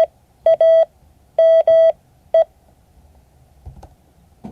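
Morse code practice tone: a single steady-pitched beep keyed in long and short elements (dahs and dits), sending one character over about two and a half seconds, which the class reads as the numeral 9.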